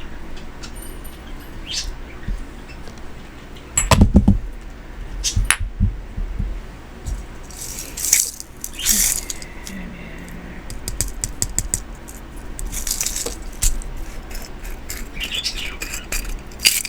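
Small metal pieces rattling and clinking as they are handled: a string of sharp clicks and taps, with a few louder knocks and brief scraping hisses.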